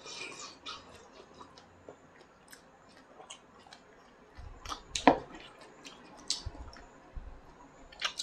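Quiet sounds of a meal at the table: a short slurp of soup from a bowl at the start, then chewing and scattered light clicks of chopsticks and tableware, with one sharper knock about five seconds in.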